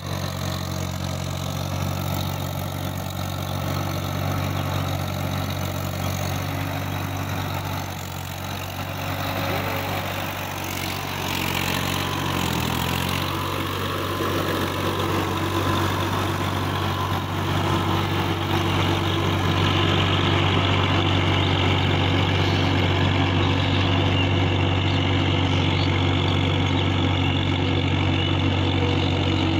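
Swaraj 855 FE tractor's three-cylinder diesel engine running steadily as the tractor works a flooded, muddy paddy field. It grows louder about two-thirds of the way through.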